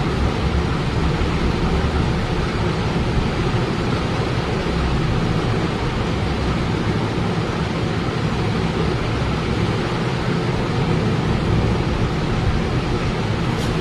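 Steady background noise with a low rumble underneath, unchanging throughout.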